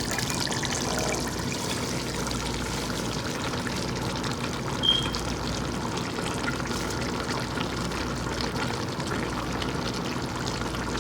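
Chicken and spinach curry sizzling and simmering in the pot, a steady watery hiss, with a brief high clink about five seconds in.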